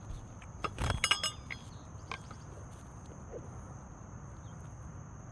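A quick cluster of metallic clinks with a short ringing about a second in, then a lighter tap near two seconds: a roofer's hatchet and roofing nails being handled as a replacement 3-tab shingle is set in place.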